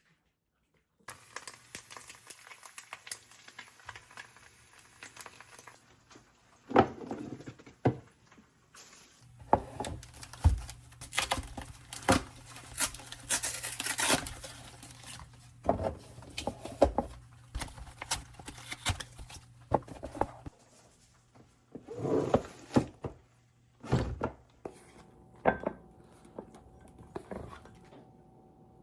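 Kitchen handling sounds: rustling and tearing with scattered sharp knocks and clatters, irregular throughout.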